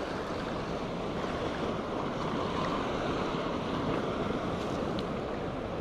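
Sea surf breaking among shoreline rocks, a steady wash of waves.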